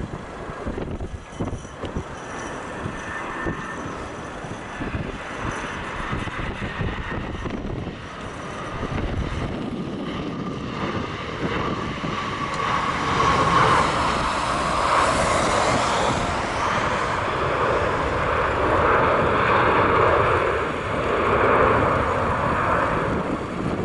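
Airbus A320 jet airliner landing. Gusts of wind rumble on the microphone at first. Then the jet engines' noise swells as the plane passes low and touches down, with a whine falling a little in pitch. The engine noise stays loud as the plane rolls out along the runway.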